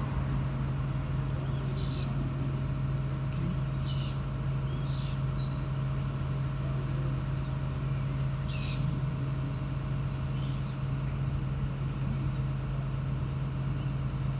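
A steady, unchanging low engine hum, with birds calling over it in several bouts of short, high, falling chirps.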